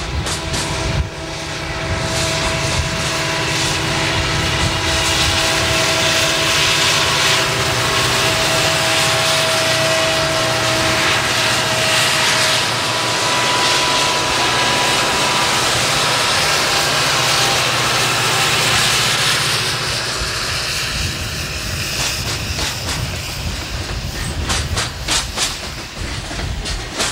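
Southern Pacific diesel locomotives working under load in a coal train pass close by: steady engine rumble with a high whine on top, loudest around the middle. Loaded coal hopper cars follow, their wheels clicking over rail joints in the last few seconds.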